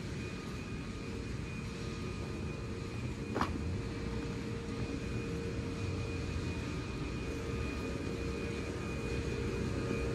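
Toyama Chihō Railway 10030-series electric train pulling slowly into the platform: a steady low rumble with a faint steady whine, growing a little louder as it draws alongside. A single sharp clank about three and a half seconds in.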